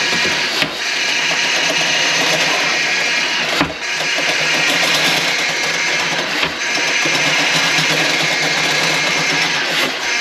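A drain-cleaning machine running steadily, with a brief click and dip in level about every three seconds.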